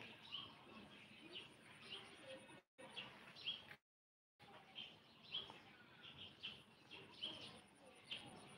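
Faint bird chirping: short high chirps repeated about twice a second. The sound cuts out twice, briefly.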